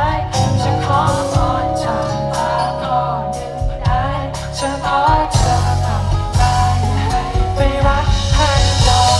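A live band playing a pop-rock ballad with a sung melody, guitar and a steady bass line.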